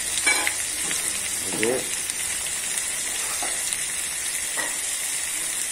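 Vegetables frying in an aluminium kadai, a steady sizzle. A few brief scrapes and knocks of stirring in the metal pan come through over it, the sharpest about a third of a second in.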